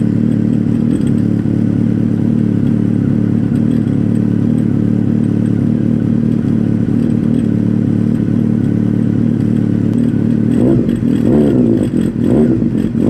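Honda CB1000SF inline-four idling steadily through a Maverick MV83 carbon slip-on silencer, then blipped with a few quick throttle revs near the end.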